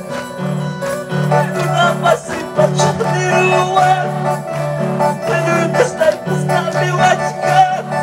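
Live worship music from a band, with a repeating bass line and a voice singing over it.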